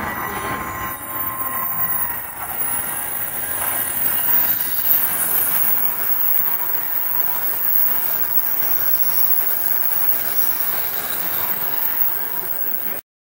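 An E7/W7-series Shinkansen passing close by a platform: a steady rush of air and wheel-on-rail noise with a high hiss. The sound cuts off abruptly near the end.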